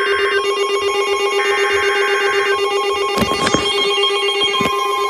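NOAA Weather Radio emergency alert signal: two harsh, buzzing bursts of SAME header data, each about a second long, over a steady tone. A short crackle of static comes about three seconds in, and near the end a steady warning alarm tone begins.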